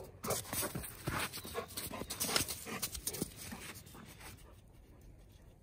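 Golden retriever mix panting quickly up close, with a rapid run of soft crunches from its paws in snow, fading after about four seconds.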